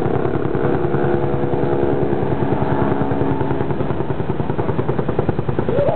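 A vehicle engine running steadily at a constant speed, with a fast, even pulsing in its note.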